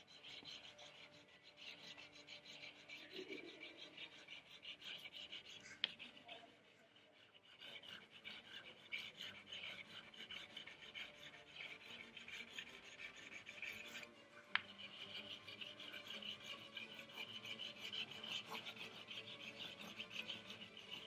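A black drawing stick scratching fast back-and-forth zigzag strokes across paper, a dry rasping that pauses briefly about seven seconds in. Two sharp clicks come near six and fourteen seconds in.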